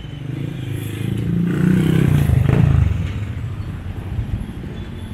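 A motorcycle engine passing close, getting louder to a peak about halfway through and then fading.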